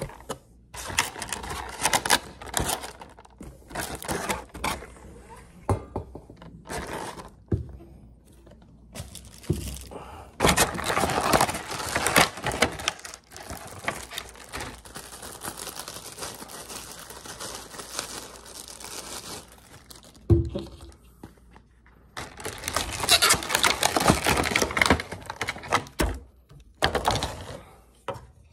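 A figure's clear plastic packaging tray and cardboard box being handled and unpacked: irregular crinkling and crackling of the plastic with knocks and thunks, and one sharp knock about twenty seconds in.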